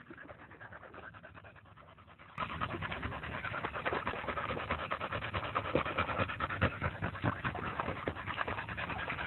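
Cattle dog panting softly, then from about two seconds in, louder, rapid wet splashing and sloshing with panting as it wallows with its head down in shallow muddy water.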